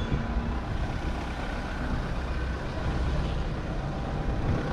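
A car engine idling steadily, a low even rumble with no sudden changes.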